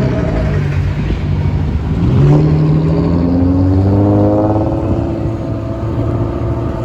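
Nissan 350Z's V6 engine being driven hard: its pitch dips near the start and again about two seconds in, then climbs steadily for a couple of seconds and holds high.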